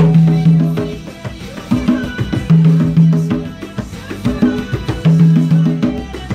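A pair of hand-played conga drums beating a tropical Latin rhythm of quick slaps and open tones, along with a recorded pop song played through a TV speaker, whose held bass note comes back about every two and a half seconds. The congas have not been tuned, and the player says they may be a little out of tune.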